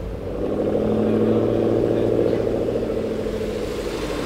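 Maserati MC12 Corsa's 6.0-litre V12 running at a steady, low pitch, getting louder about half a second in and easing slightly later.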